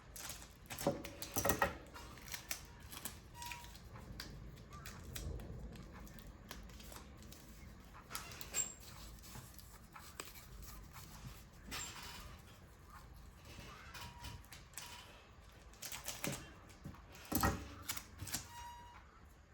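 Irregular clicks, taps and light rustles of hands working on a paper craft, handling paper and small tools. The busiest bursts come about a second in and again near the end.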